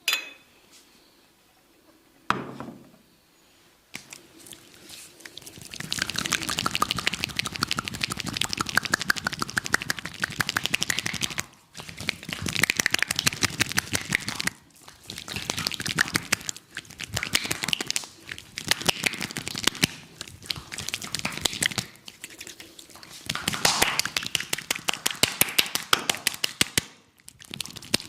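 Massage on the head, neck and shoulders: a barber's hands tapping and slapping rapidly in bursts of a few seconds, with short breaks between them. A sharp click comes at the start and a single thump about two seconds in.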